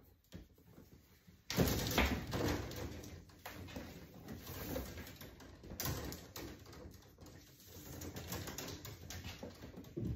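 Electrical cables being handled and pulled around a breaker panel: irregular rustling, scraping and small clicks of wire rubbing against wire and the panel, starting suddenly about a second and a half in.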